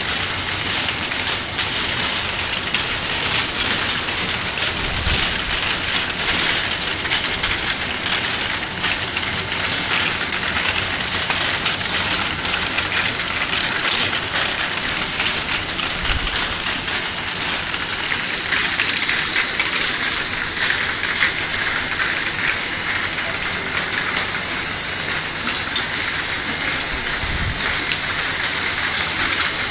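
External vial washing machine for 50 ml vials running, with a steady loud hiss of spray or air jets and scattered light clicks throughout.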